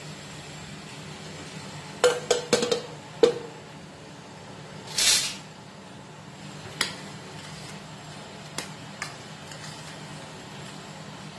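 Metal spoon and stainless steel pressure cooker clinking: a quick cluster of metal clinks with a short ring about two to three seconds in, a brief scraping rush near the middle, then a few lighter taps as thick curry is stirred. A steady low hum runs underneath.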